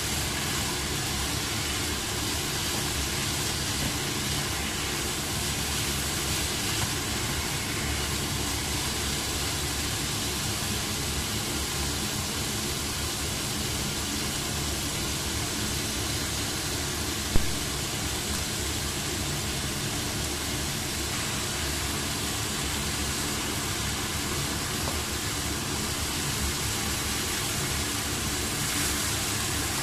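Steady sizzling hiss of carrot and potato strips and meat frying in a pan, with a single sharp tap a little past the middle.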